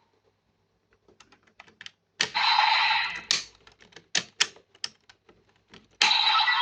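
Hard plastic clicking and snapping as DX Kamen Rider Geats toy buckles are handled and slotted, with a short burst of the toy's electronic sound effect about two seconds in and another starting near the end.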